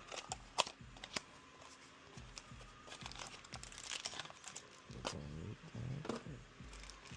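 Product packaging being handled and opened: a few sharp clicks near the start, then crinkling and tearing of the wrapping.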